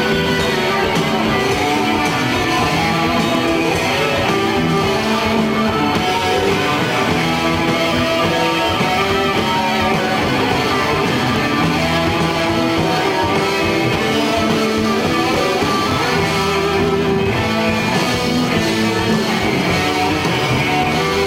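Live rock band playing an instrumental passage, led by distorted electric guitars over bass and drums.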